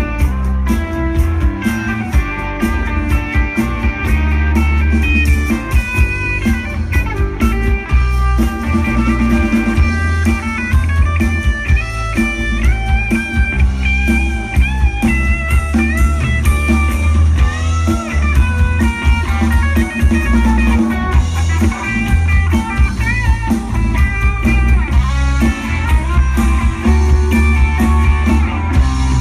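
Live rock band playing an instrumental passage: electric guitar lead with bending notes over a drum kit and rhythm guitar.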